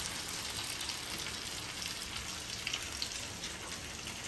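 Masala-coated fish pieces shallow-frying in hot oil in a frying pan: a steady sizzle with scattered small crackles.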